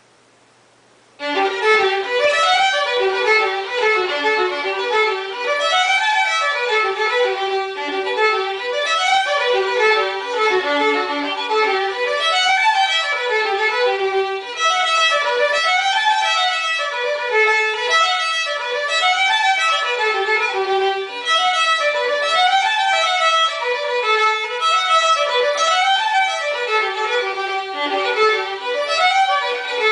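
Solo fiddle starting about a second in and playing a quick traditional fiddle tune: fast bowed runs that climb and fall in repeating phrases.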